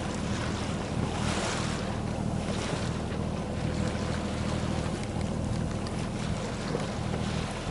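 Wind and sea water rushing past a small sailboat under way, with wind buffeting the microphone and a steady low hum underneath; the rush swells briefly about a second and a half in.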